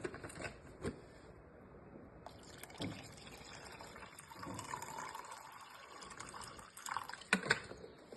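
Water being poured into a steam vaporizer's water reservoir, a steady splashing stream from about two seconds in. A few knocks near the end.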